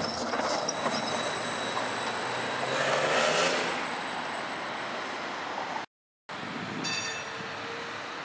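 Trams running on street track: a steady rolling rumble that swells to its loudest about three seconds in as a tram goes by. It breaks off for half a second near the six-second mark, then another tram is heard rolling along more quietly.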